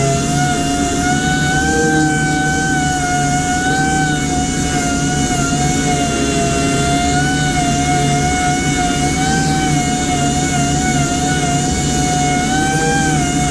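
Power sander running steadily with a motor whine that dips and rises slightly in pitch as it is pressed, sanding a super-glue-filled carbon fibre repair with 220-grit paper.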